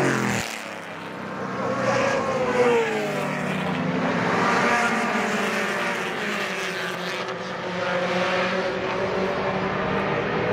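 Race car engines passing at speed, several in turn, their pitch sliding up and down as they go by, with a brief lull about a second in.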